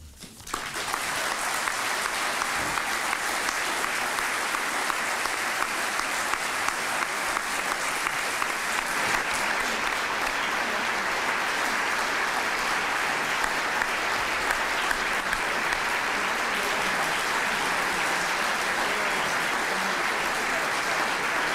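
Large audience applauding: dense, steady clapping that comes in about half a second in and then holds at an even level.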